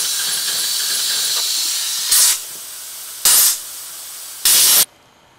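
Compressed air hissing from the air line of a 1:16 scale Heisler model steam locomotive, being test-run on air instead of steam. A steady high hiss is followed by three short, louder blasts about a second apart, and the air cuts off suddenly near the end.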